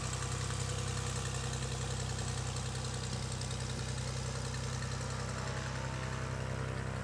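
Single piston engine and propeller of a high-wing light aircraft running steadily at taxi power as the plane taxis past.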